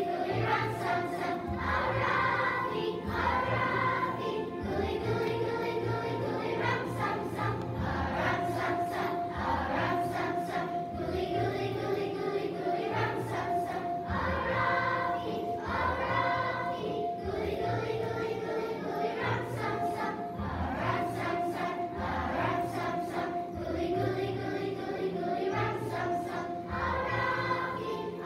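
A children's choir of third-graders singing together over music with a steady beat.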